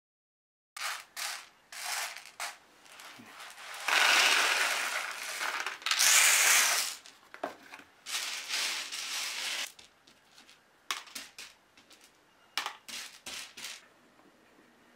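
Dry green coffee beans rattling and clicking as they are handled and sorted, with a longer, louder stretch of rattling from about four to seven seconds in and sparser clicks after.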